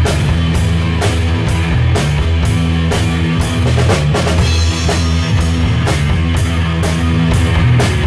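Rock band playing: a drum kit with cymbal hits about two to three a second, a busier run of drum hits near the middle, over electric guitars and bass.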